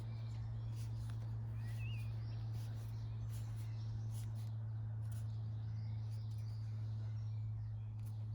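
Garden birds chirping faintly now and then over a steady low hum and outdoor background noise.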